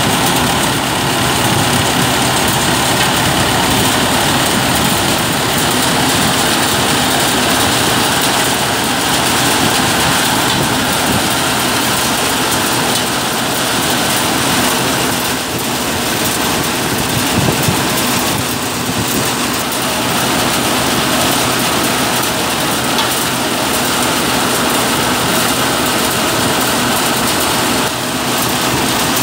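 Geeta groundnut thresher running at working speed as vines are fed in, together with the Mahindra 415 DI tractor's diesel engine that drives it: a loud, steady mechanical din.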